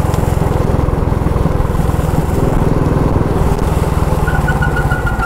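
Motorcycle engine running steadily at road speed. About four seconds in, a high, pulsing squeal starts as the brakes are applied, a bus-like brake sound.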